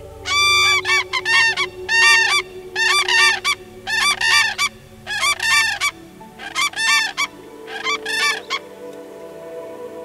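Common cranes calling: loud trumpeting calls in a rapid series of groups, stopping a little before the end.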